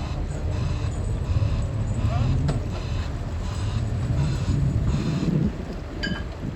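Fishing boat engine running steadily with a deep rumble, and a regular high hiss pulsing about twice a second over it.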